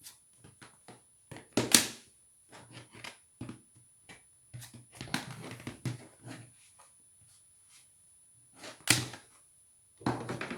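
Tumble dryer lint filter being checked: plastic clicks, knocks and rattles as the filter and door are handled, with two sharper knocks, one about two seconds in and one near the end.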